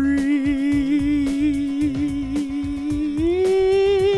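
A voice humming one long, steady note that steps up to a higher held note about three seconds in, over background music with a beat.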